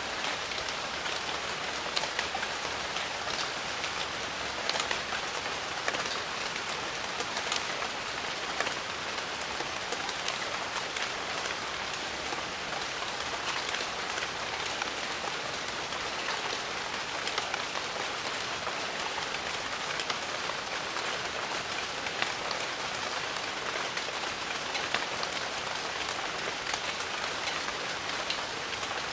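Steady rain falling on foliage, a dense even hiss dotted with the sharper ticks of individual drops.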